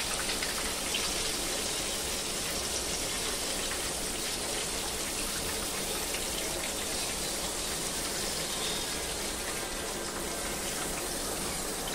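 Chicken kebabs deep-frying in hot oil in a pan, the oil sizzling steadily.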